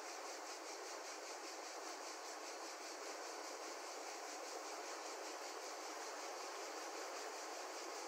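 Wide, fast-flowing river rushing over a shallow riffle and around a midstream snag: a steady, even wash of water noise.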